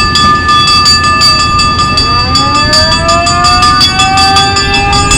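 Alarm bell ringing with rapid repeated strokes, about four a second. About two seconds in, a siren starts winding up, rising slowly in pitch and then holding.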